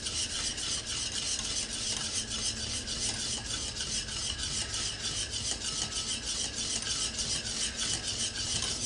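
Wire whisk stirring thickening custard in a stainless steel saucepan: a steady run of quick, even scraping strokes of the wires against the pan. The custard is kept moving so it doesn't burn as it thickens.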